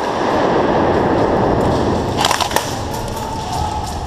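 An airsoft grenade going off with a loud rushing hiss of gas that fades after about two seconds, followed by a few sharp cracks.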